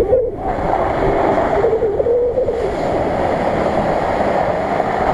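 Nissan Patrol 4x4 ploughing through a muddy puddle, its engine running under load while water and mud slosh around the tyres. The engine note rises and falls in the first couple of seconds over a steady loud wash.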